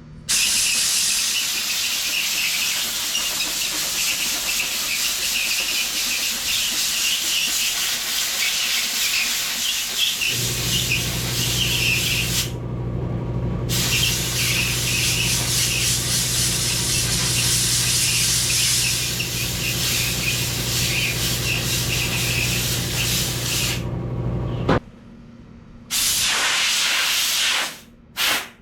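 Compressed air hissing loudly from a blowgun as it is blown through a tractor's condenser to clean out the fins. It runs in one long blast with a low steady hum joining about ten seconds in, then comes in two shorter blasts near the end.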